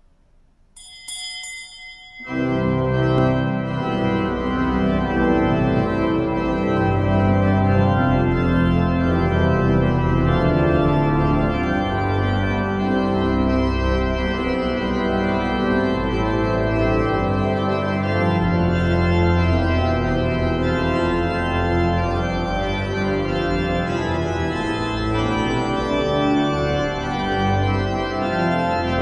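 Church pipe organ playing sustained chords of entrance music, starting about two seconds in, just after a brief high ringing tone.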